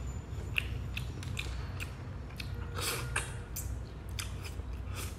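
Close-up eating sounds: a person chewing and sucking meat from roasted shellfish, with irregular wet smacks and small clicks.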